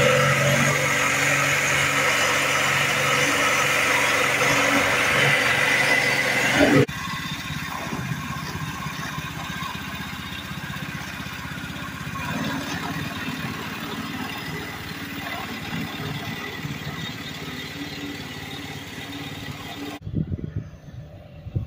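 Predator 212 single-cylinder four-stroke engine running steadily, driving the home-made long-tail propeller shaft that pushes a canoe, with water spray hissing off the shaft. About seven seconds in the sound cuts suddenly to the same engine heard more faintly from a distance.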